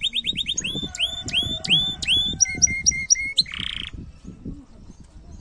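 Domestic canary singing: a fast trill of repeated notes, then slower rising whistled notes, a row of short even notes and a brief buzzy note, stopping about four seconds in.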